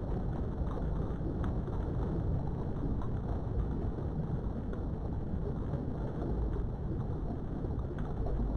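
Steady low rumbling background noise with no clear pitch, and a few faint clicks over it.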